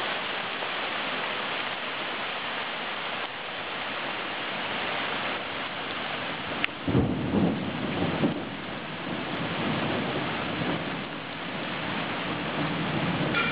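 Heavy cloudburst rain pouring steadily, a dense hiss of rain on the street and roofs. About seven seconds in, a low rumble of thunder swells for a second or so, with fainter rumbling after it.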